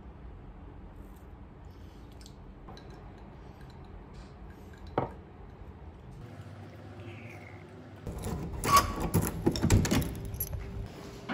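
Low room tone with a single sharp tap about five seconds in. Then, about eight seconds in, a run of metallic clicks and clunks as a front door's lock and lever handle are worked.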